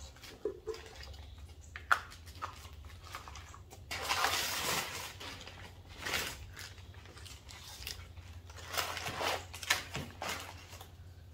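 Plastic bag and brown wrapping paper crinkling and rustling in bursts as a turbocharger is unwrapped by hand, with a few light clicks and knocks of parts set on the workbench.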